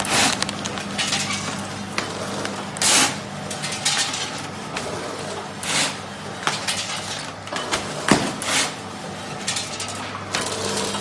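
Automatic vertical bag-forming chips packing machine running: a steady motor hum with clicking and clattering, and a loud rustling burst about every three seconds as it cycles through each bag.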